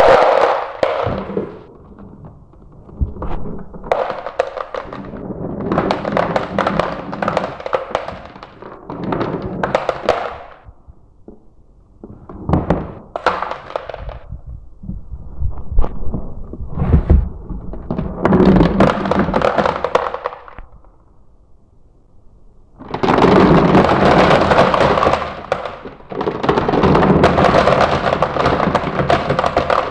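Glass marbles rolling and clacking down a marble run, in bursts of rapid clicks and rattles with short lulls between them. Near the end a dense, continuous rattle as many marbles run at once.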